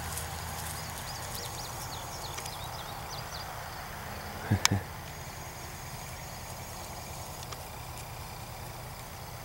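Quiet outdoor field ambience: a steady low rumble, with faint high chirps over the first few seconds. A sharp double thump about four and a half seconds in is the loudest sound.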